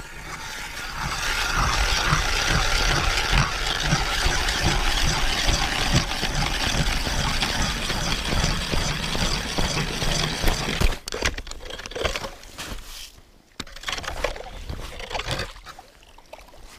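Hand-cranked ice auger drilling through ice, its blades making a steady grinding scrape. About eleven seconds in the drilling stops, and scattered knocks and scrapes follow.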